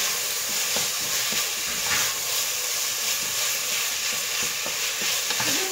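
Chopped onion and garlic sizzling steadily in olive oil in a stainless steel pressure-cooker pot, with a few faint scrapes from stirring.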